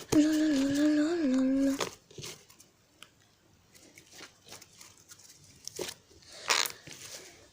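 A high, drawn-out whine-like vocal sound for about two seconds, stepping slightly in pitch. Then soft handling noises of slime being pulled apart, with a short crinkle near the end.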